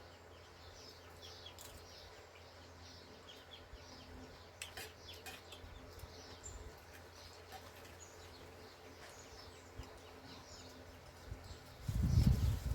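Small birds chirping over and over in short high notes, against a steady low hum. Near the end a brief loud low rumble, like a knock or wind on the microphone.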